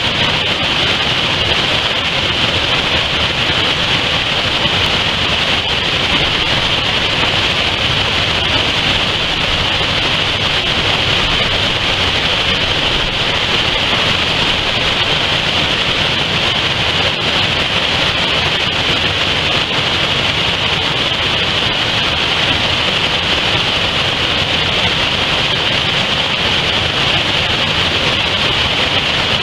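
Waterfall cascading over rocks into rapids: a loud, steady rush of falling water that does not change.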